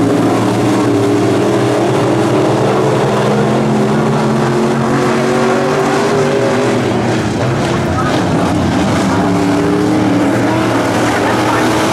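A pack of pro stock dirt track race cars' V8 engines running hard together, a loud steady engine drone whose pitches waver as the cars accelerate and pass.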